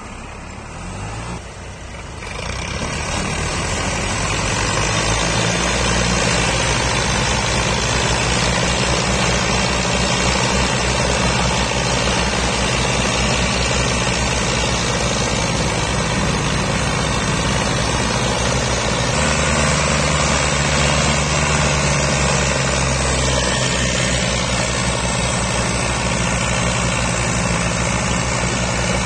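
Diesel tractor engines, a Massey Ferguson 240's three-cylinder among them, running hard under heavy load while pulling an overloaded sugarcane trolley. The engine noise grows louder over the first few seconds, then holds steady, with a change in the engine note about two-thirds of the way through.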